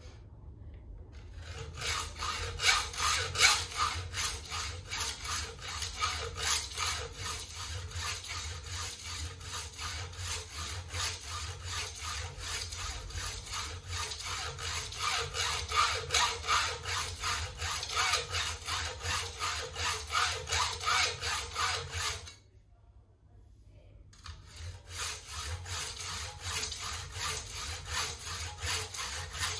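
Hand hacksaw cutting a workpiece clamped in a vise, with steady back-and-forth strokes. The sawing stops for about two seconds near the end, then resumes.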